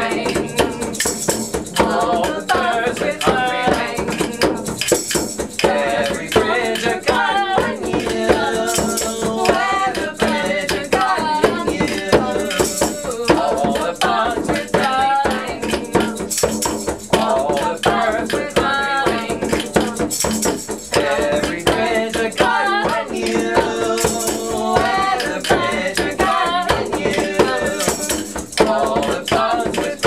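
A small group playing and singing: a djembe-style hand drum beaten in a steady rhythm, with a rattle and hand claps, under voices singing a melody. A bright rattle burst recurs about every four seconds.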